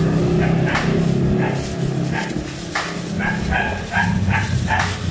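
A dog barking in short yaps, five or six in quick succession during the second half, over a steady low rumble that fades through the first half.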